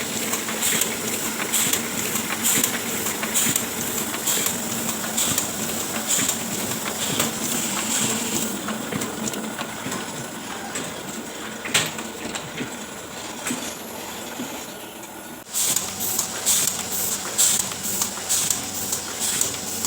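Oliver 72 sheet-fed offset printing press running, a steady mechanical clatter that repeats with each cycle. It eases off for several seconds midway, then picks up sharply again about fifteen seconds in.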